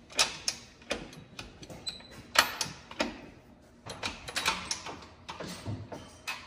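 A string of irregular sharp clicks and knocks from hands working around a motorcycle, with the engine not yet turning over. The loudest knocks come about a second in and about two and a half seconds in.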